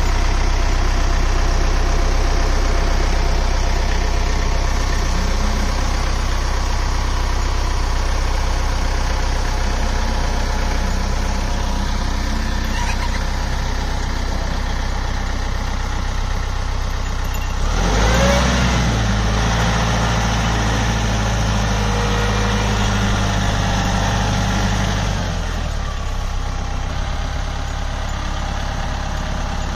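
RK compact tractor's diesel engine idling steadily, then revving up about two-thirds of the way through for several seconds before settling back to idle.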